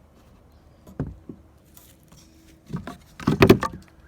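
Handling noises while a shot target is inspected: a single light knock about a second in, then a short flurry of louder knocks and rustling near the end.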